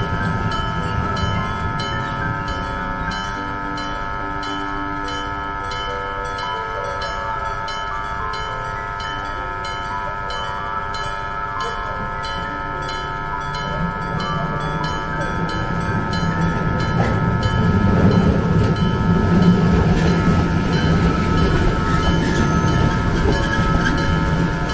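Mechanical bell of a railway level-crossing warning signal, rung with a fast, steady run of strikes that blend into a continuous ringing. A train rumbles past, growing louder from a little over halfway through.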